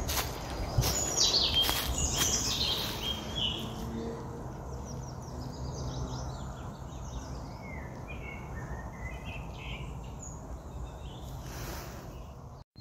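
Small woodland birds chirping and singing in short, scattered phrases over a steady outdoor hiss. A few footsteps crunch in dry leaf litter in the first second. The sound cuts off suddenly near the end.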